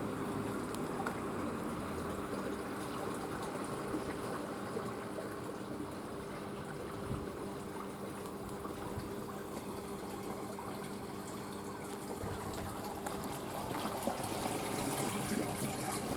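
A steady mechanical hum of several held low tones over an even rushing hiss.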